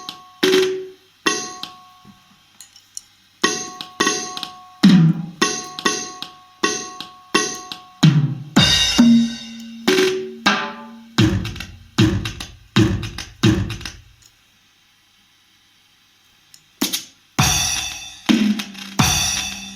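Roland SPD-20X electronic percussion pad played hit by hit, sounding a series of separate drum and percussion samples, some with short pitched tones, at about one to two hits a second. The hits stop for a couple of seconds about three-quarters of the way in, then start again.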